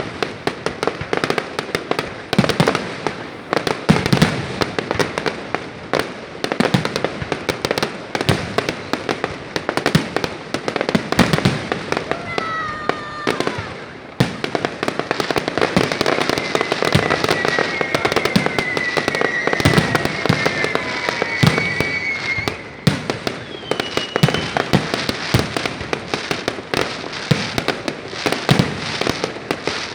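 Fireworks salute: a dense, continuous run of bangs and crackling explosions. A few thin whistling tones sound through the middle.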